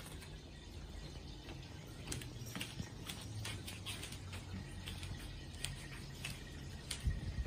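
Light, scattered taps and clicks, more frequent from about two seconds in, over a steady low room hum.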